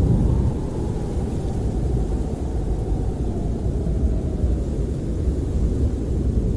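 Snowstorm wind buffeting a camper, heard from inside as a steady deep rumble, with a faint howl that rises and falls gently over the first few seconds.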